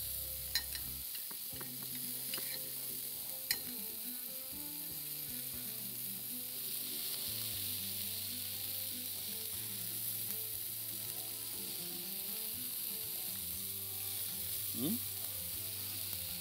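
Food sizzling in a hot pan as a steady hiss, with two sharp clinks of a fork against a plate in the first few seconds.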